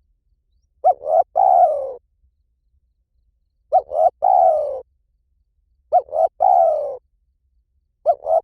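Spotted dove cooing in the 'liw tan' style, played as a lure call. Three phrases come about two seconds apart, each two or three short quick notes followed by a longer coo that falls in pitch. A fourth phrase begins at the very end.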